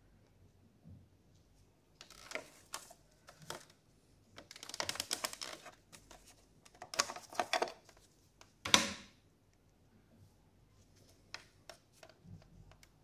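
Clicks and rattles from the plastic and metal case of a 1979 National Panasonic mini TV being handled, with two runs of quick rattling clicks. A single sharp snap a little past the middle comes as the tuner cover comes off.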